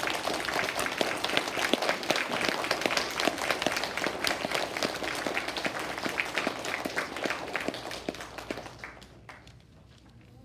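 A roomful of young children clapping, the applause dying away about nine seconds in.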